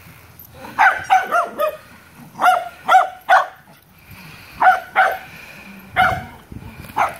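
A dog barking during play: about eleven short, high-pitched barks, in quick bunches of two to four with short pauses between.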